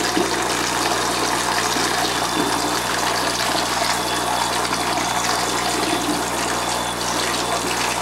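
Steady rush of water running into a plastic baby bath in a sink while a baby is washed by hand, with a faint low hum underneath.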